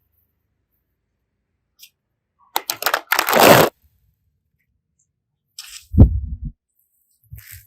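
Craft materials being handled: a few sharp clicks, then a loud half-second crackling, tearing noise, and a low thump about six seconds in.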